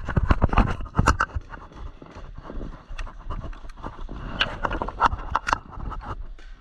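Irregular thumps and scrapes of running footsteps on dirt and brush, with loose gear knocking about.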